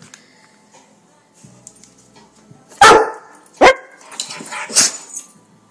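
A dog barks twice, loudly and sharply, about three seconds in, then gives a softer third bark about a second later, asking for a treat held out to it.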